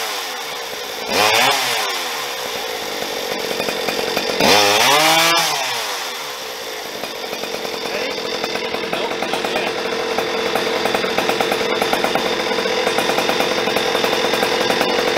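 Farmertec G395XP 94cc two-stroke chainsaw with a tuned expansion-pipe exhaust, running on the dyno. It is revved up and back down twice in the first six seconds, then runs steadily at a lower speed. The carburettor is not yet tuned to the new pipe.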